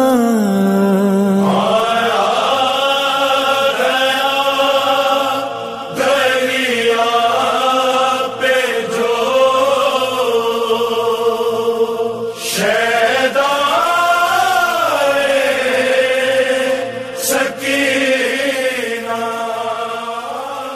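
A male voice chanting a noha, a Shia lament, in long drawn-out lines with sustained, bending notes, beginning to fade out near the end.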